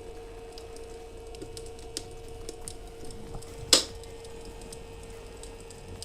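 Crackling-firewood sound effect played by the fake fireplace's MP3 module: scattered light crackles and one loud pop a little past halfway, over a faint steady hum.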